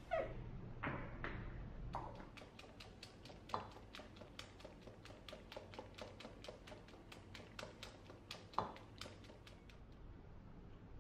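Wire whisk beating batter in a stainless steel bowl: the wires tick against the metal at about four strokes a second, with a few louder clinks. There is a louder clank at the start.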